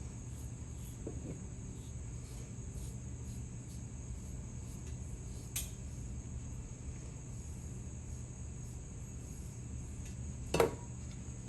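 Steady low hum and a steady high-pitched whine of workshop background, with a few light clinks of hard objects, a faint one about five and a half seconds in and a louder one near the end.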